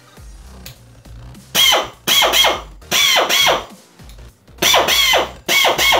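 Pneumatic drill run off an air compressor in about half a dozen short trigger bursts, its whine rising and falling in pitch as the chuck spins up and slows.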